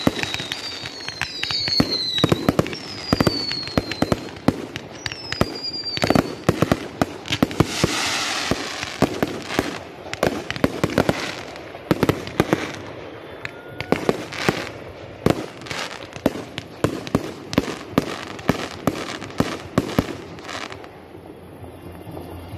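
Fireworks display: a rapid run of bangs and crackles from bursting shells, with several whistles falling in pitch in the first few seconds and a spell of crackling hiss about eight seconds in. The bangs thin out near the end.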